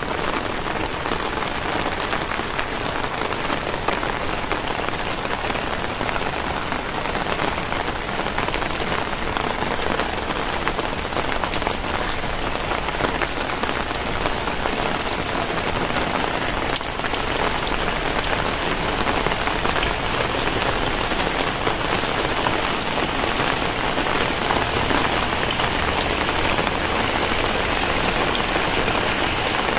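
Very heavy rain pouring down steadily, a dense hiss of drops hitting surfaces with many small distinct splatters; it grows a little heavier partway through.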